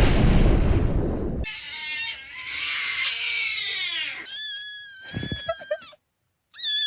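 Edited meme sound clips: a loud noisy blast for about a second and a half, then warbling animal cries and a long, high-pitched scream-like cry that cuts out briefly near the end and starts again.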